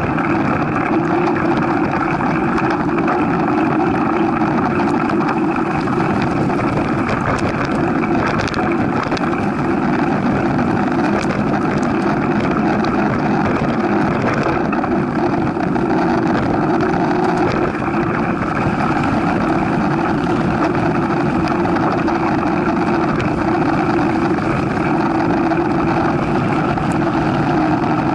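Steady rushing ride noise picked up by a camera on a mountain bike rolling along a dirt trail: wind over the microphone and tyre and frame rumble, with a few faint ticks.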